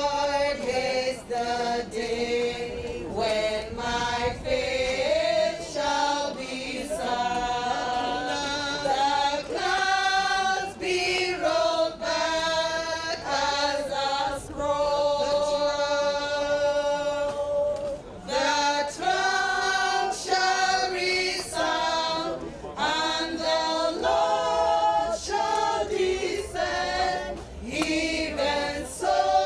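A group of women singing together in chorus without instruments, in long held notes.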